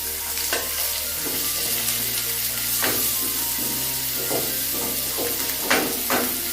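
Sliced onions sizzling as they fry in hot mustard oil in a kadai, with a few short scrapes of stirring.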